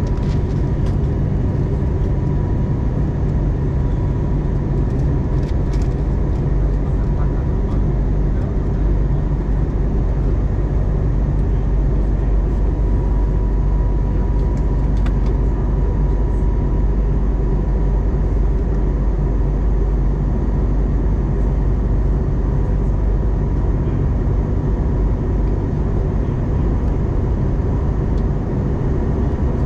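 Steady low roar of airflow and engines heard inside the cabin of an Airbus A321neo in flight, with a faint steady high whine over it.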